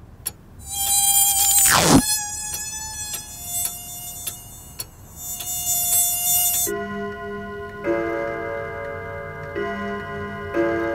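Cartoon insect buzzing: a high, whining buzz with a quick falling swoop early on. About two thirds of the way in it changes to a lower, pulsing buzz.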